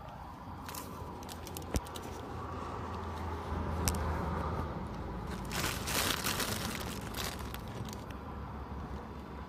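Crinkling, rustling and clicking handling noises, densest about six seconds in, over a steady low rumble of road traffic.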